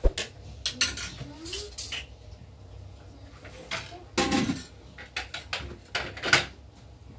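Ceramic plates clinking and a metal ladle knocking against a steel pot as rice is served out and plates are handled and stacked. The clinks and knocks are irregular, with a sharp knock right at the start and louder clatters about four and six seconds in.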